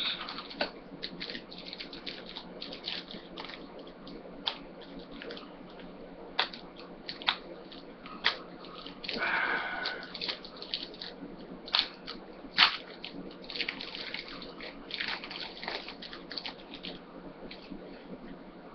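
Trading cards being handled and flipped through: scattered sharp clicks and ticks of card edges, with a longer rustle about nine seconds in and a louder snap about twelve seconds in.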